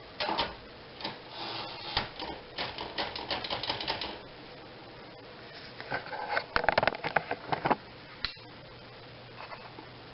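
Smith Corona Riviera manual typewriter being typed on: rapid runs of key strikes for about four seconds, a pause of about two seconds, another quick run, and one last strike.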